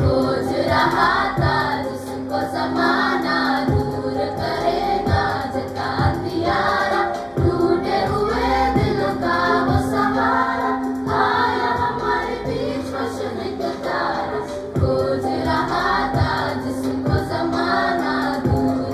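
A girls' choir singing a Christmas carol in unison, over an accompaniment with a held low note and a steady beat.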